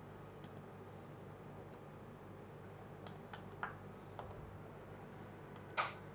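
A few scattered clicks from a computer mouse and keyboard, the loudest near the end, over a faint steady hum.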